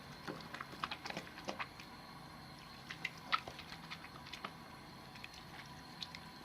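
Wet bar soap being lathered by hand: irregular small wet clicks and crackles of the soap and foam, thickest in the first half.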